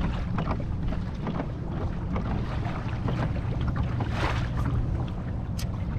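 Wind buffeting the microphone and water moving against a kayak as it trolls, a steady low rumble with scattered light clicks and a brief noisy swell about four seconds in.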